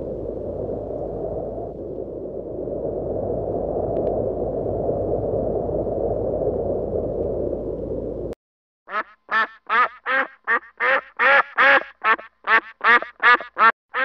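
Steady insect buzzing for about eight seconds, which cuts off suddenly. A mallard duck then quacks in a quick unbroken series, about three quacks a second.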